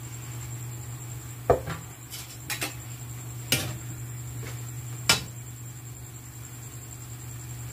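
A metal ladle clanking against an aluminium wok as a sauté of banana heart is stirred. About six sharp clinks come in the first five seconds, over a steady low hum.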